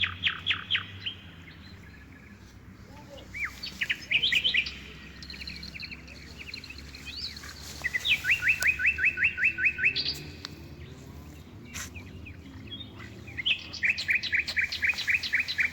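A small songbird singing: repeated trills of quick, evenly spaced falling notes, about ten a second. Each trill lasts a second or two, and the trills come back several times with short pauses between them.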